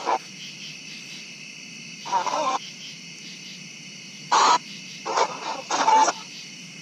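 Smartphone ghost-box app sweeping through radio audio: a steady static hiss broken about four times by short, chopped fragments of reversed speech, each well under a second.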